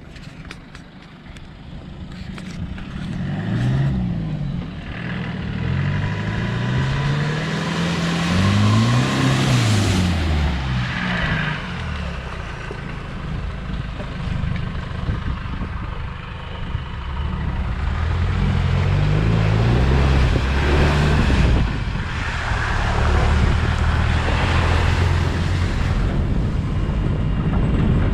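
Land Rover Discovery 200Tdi's 2.5-litre four-cylinder turbodiesel engine driving off-road, its revs rising and falling several times as it works under load, with bursts of rushing noise over it.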